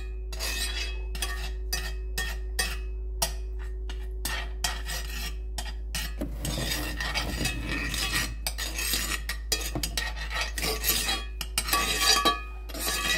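Metal spoon scraping and clicking against a cast-iron skillet, spreading melted butter around the pan. A run of short clicks and scrapes, busiest about halfway through and again near the end.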